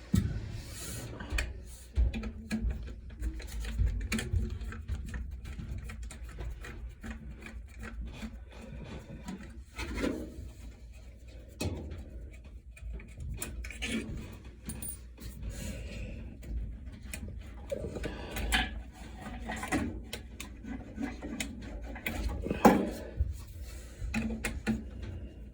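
Handling noise from work on furnace parts: irregular clicks, knocks and scraping, with a low rumble underneath and a few louder knocks, the loudest near the end.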